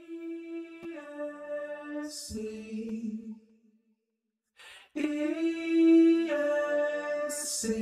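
A cappella vocal jingle: a voice sings the letters "E-S-C" on held notes, with a hissed "S" and a lower last note, twice with a short pause between.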